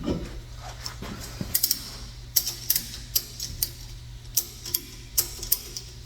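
Irregular sharp metallic clicks and clinks from tools and exhaust pipe hardware being worked under the car, some coming in quick clusters, over a steady low hum.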